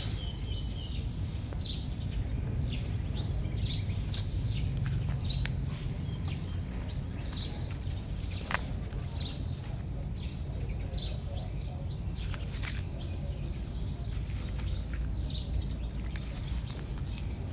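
Small birds chirping in short, repeated high notes over a steady low background rumble, with one sharp click about eight and a half seconds in.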